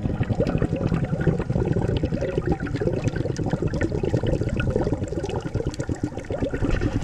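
Underwater bubbling and crackling picked up by a camera in its waterproof housing during a scuba dive: a dense, continuous patter of small clicks and bubbles.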